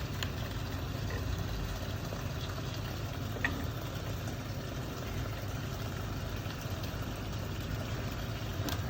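A machine running steadily with a low, even rumble, with one faint click about three and a half seconds in.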